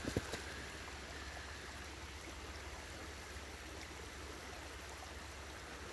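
Steady rushing of a shallow creek flowing, with a few short knocks in the first half-second.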